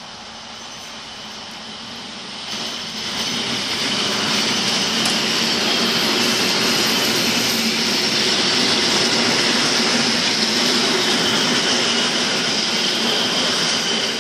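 A red-and-cream multiple-unit passenger train rolling past close by. The noise swells about two and a half seconds in and stays loud and steady as the cars go by, with a steady high whine over the rumble.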